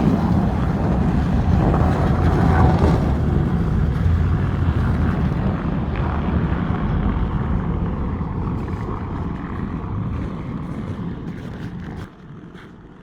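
A motor vehicle driving, its engine rumble slowly fading and then dropping away sharply about twelve seconds in.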